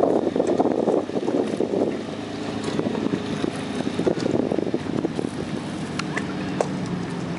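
Axis A22 wake boat's inboard engine running at speed through turns, a steady drone most plain in the middle of the stretch. Wind buffets the microphone, heaviest in the first two seconds.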